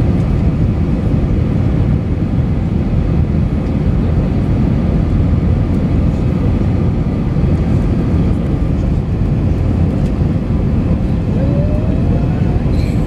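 Steady jet engine and airflow noise heard from inside an airliner cabin, a dense low drone with a hiss above it, during the climb after takeoff.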